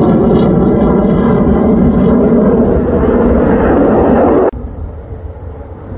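F-35 fighter jet flying overhead: a loud, steady jet engine roar that cuts off suddenly about four and a half seconds in, leaving a much quieter, distant rumble.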